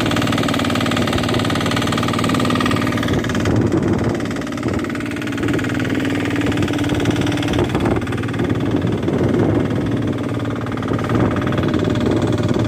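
Fishing boat's engine running steadily under load while towing another boat, with wind and water noise around it.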